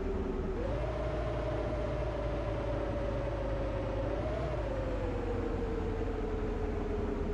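Bus running, heard from inside: a steady low rumble with a whine that jumps up in pitch about half a second in, then slowly drops, with a small rise a little past the middle.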